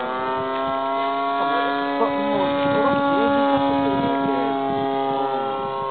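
The 34cc gas engine of a Katana RC aerobatic plane running at high throttle in flight; its pitch climbs at the start and then holds steady.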